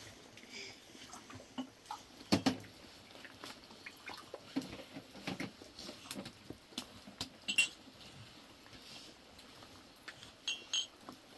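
Spoons clinking and scraping against plates and a metal tray during a meal: scattered light clicks, with a few sharper clinks about two, seven and ten seconds in.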